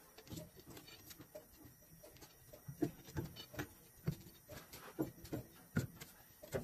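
Scattered faint knocks and short scrapes of a steel pry bar against a truck tire and wheel as the wheel is levered into place on the hub.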